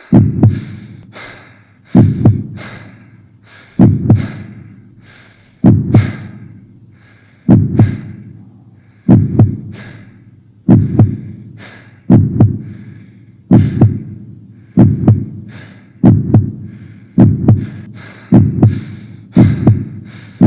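Heartbeat sound effect: loud double thumps (lub-dub), about one every two seconds at first, speeding up steadily to about one a second by the end.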